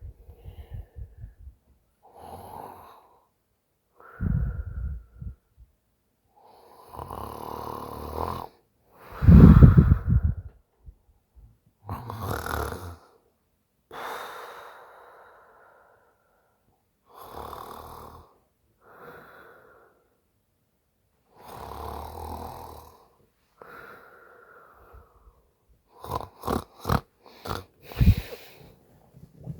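A woman snoring in her sleep after a few drinks: about a dozen breaths roughly two seconds apart, several with a rattling snore, the loudest about a third of the way in. A quick run of short, choppy breaths comes near the end.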